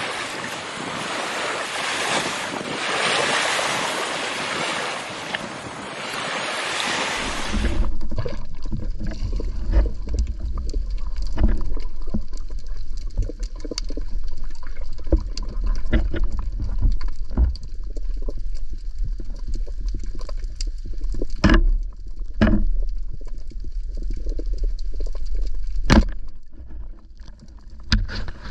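Sea wash and wind hiss for about seven seconds, then an abrupt change to the muffled sound of a camera underwater: a low rumble with scattered clicks and knocks from the diver's movements.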